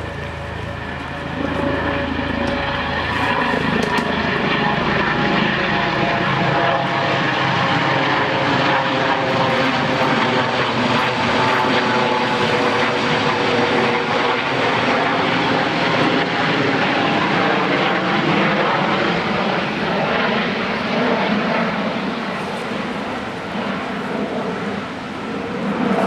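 US Coast Guard HH-65 Dolphin (Eurocopter AS365 Dauphin) twin-turbine helicopter flying past: steady turbine whine and rotor noise, with its tones slowly gliding in pitch as it goes by. It grows louder about a second and a half in and then holds.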